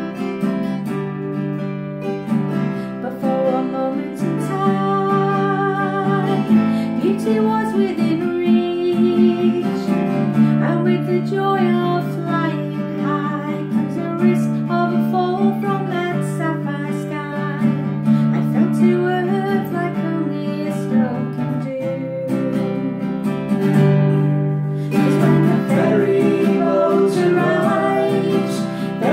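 Acoustic guitar strummed as accompaniment to a woman singing a song. A man's voice joins in near the end.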